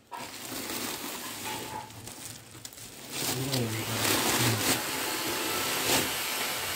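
Woven plastic sack rustling and crinkling as it is pulled back and unwrapped from a catalytic converter. The sound is patchy at first and grows louder and more continuous about three seconds in.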